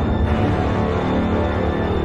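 Background film score music: sustained held tones over a heavy low bass.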